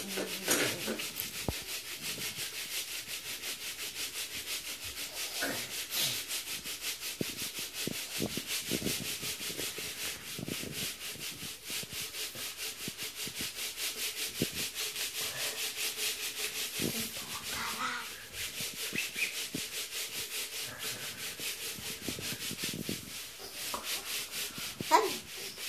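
A Lego city being shaken back and forth to simulate an earthquake: a rapid, even rhythm of scraping strokes with bricks rattling, and an occasional louder knock.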